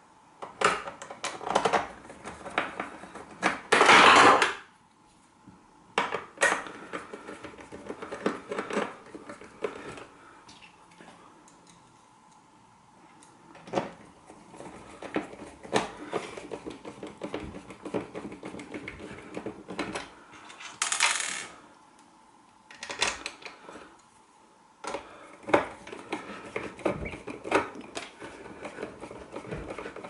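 Hands handling the plastic casing and parts of an opened electric shower unit on a hard worktop: irregular clicks, taps and light rattles of plastic and small metal parts, with a longer scraping rustle about four seconds in and another about twenty-one seconds in.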